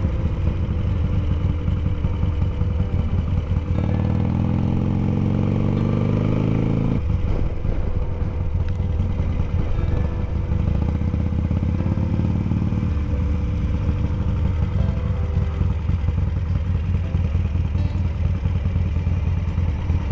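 Harley-Davidson V-twin motorcycle running at road speed, heard from the rider's seat. The engine note climbs under acceleration from about four seconds in and breaks off at about seven seconds, then picks up again between about eleven and thirteen seconds.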